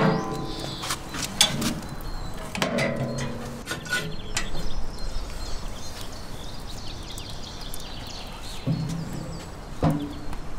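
Steel offset smoker's firebox lid clanking shut, a few sharp metal knocks in the first two seconds. After that, quieter outdoor background with faint bird chirps.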